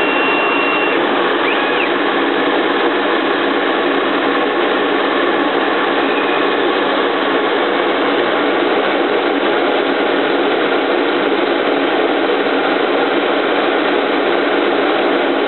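Dental CAD/CAM milling machine running steadily, its spindle milling a PMMA disc, with an even, unbroken machine noise.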